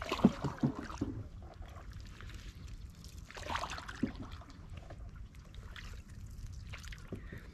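A hand dipping into still lake water from the side of a small boat. A few quick knocks and splashes come in the first second, then a short splash about three and a half seconds in and a single knock just after, with water trickling between.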